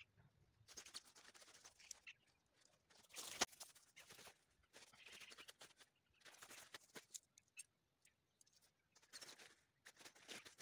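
Faint, irregular rustling and crinkling of nylon tent fabric being unfolded and spread out on grass, with a single sharp click about three and a half seconds in.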